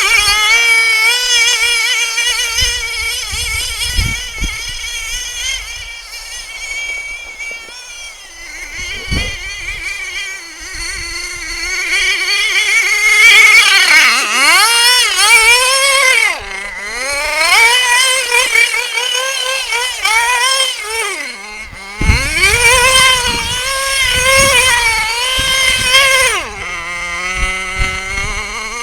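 Small pull-start nitro engine of an RC car, running and revving up and down in a high, buzzing wail that dips and climbs again several times. Low thuds come in here and there. Near the end it settles to a lower, steady idle.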